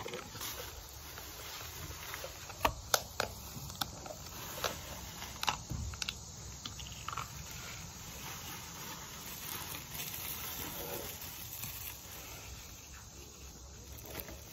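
Scattered light clicks and taps, about a dozen, mostly in the first half, over a low steady background: handling noises close to the phone's microphone.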